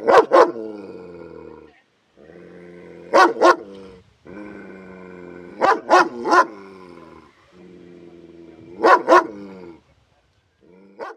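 Police dog barking in short rounds of two or three sharp barks, each round running straight into a low growl of a second or so. There are four rounds, with another bark starting near the end.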